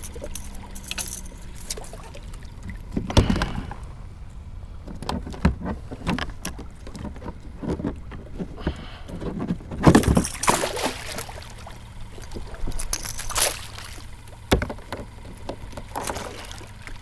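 Irregular knocks, rattles and short splashy bursts of water and gear moving around a fishing kayak, the loudest about three seconds in, about ten seconds in and near fifteen seconds, over a steady low rumble.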